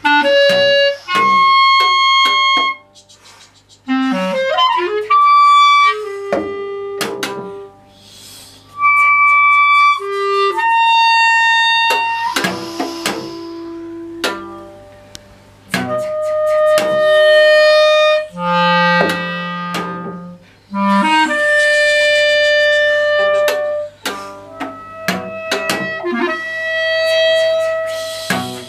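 Music: a string of separate held notes at changing pitches, some breathy, with short gaps between them, over a steady low hum.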